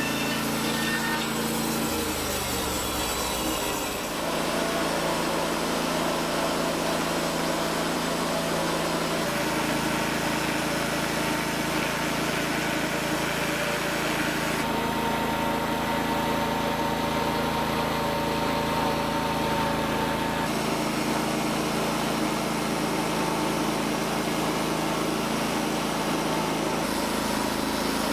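Norwood portable band sawmill running under engine power, its blade cutting through a log. The engine pitch shifts a couple of seconds in.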